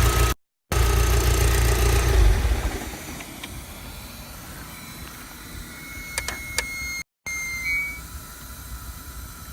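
Volkswagen Scirocco R engine running, which stops about two and a half seconds in. After that, a few sharp clicks and a short high beep over a quiet hiss.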